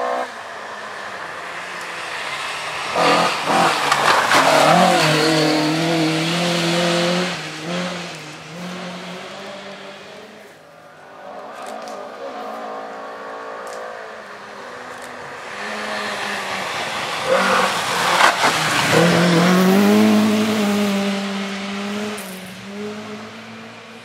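Two rally cars passing at speed one after the other, about three seconds in and again about seventeen seconds in. Each engine note rises and falls through gear changes as the car goes by, over the noise of tyres on loose gravel.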